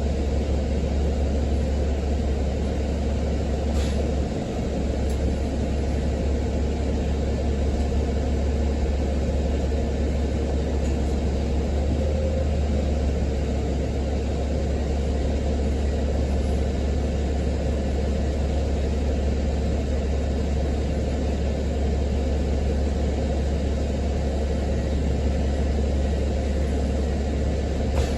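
Steady low engine and road rumble of a city transit bus heard from inside the cabin, with a faint steady tone above it.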